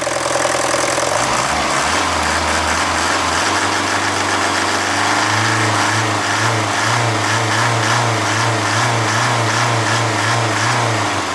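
Mercedes OM601 four-cylinder diesel running at raised revs, its note stepping up about a second in and again about five seconds in, then dropping back toward idle near the end. At these revs the hot-engine rattle from the injection pump is gone; that rattle comes from a slack timing-chain tensioner, starved of oil pressure by a blown head gasket.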